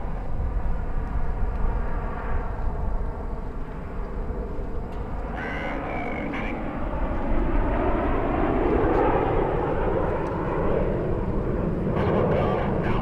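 CT-114 Tutor jets of the Snowbirds display team flying past, their single turbojet engines making a whine that slides slowly down in pitch. About seven seconds in, the jet noise swells into a louder, even rumble.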